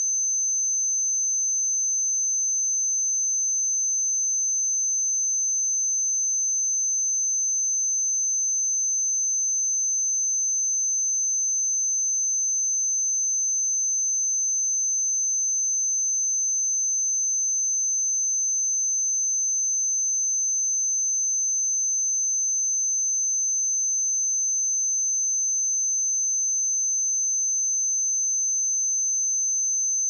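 A steady 6186 Hz sine-wave test tone, a single high pitch held at constant loudness, for checking speakers or headphones.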